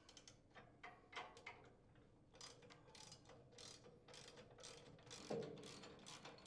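Faint clicking of a 1/2-inch ratcheting wrench, a few clicks a second in short runs, as it backs off the nut holding the chipper blade's mounting bolt, with a duller knock about five seconds in.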